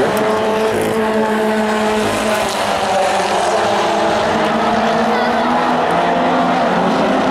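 Several Pro4 race truck engines running together at racing speed, their pitches shifting as the trucks pass and lap.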